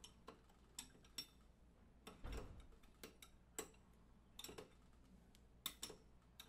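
Faint, scattered metallic clicks and taps of an open-end wrench being fitted onto and turned on the threaded metal cap of a water welder's booster block, a dozen or so in all, with one soft thump a little over two seconds in.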